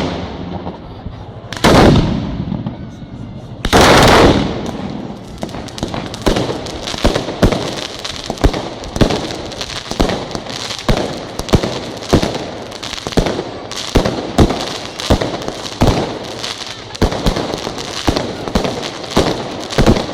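A Neapolitan firecracker battery going off: three heavy bangs about two seconds apart at the start, then an unbroken rapid string of bangs and crackling, with louder reports about once a second.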